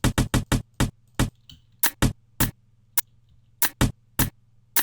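A drum-machine groove built from percussion slices cut out of a drum loop with Slicex, playing back as a pattern of short, sharp hits in an uneven, syncopated rhythm. A faint steady hum sits underneath.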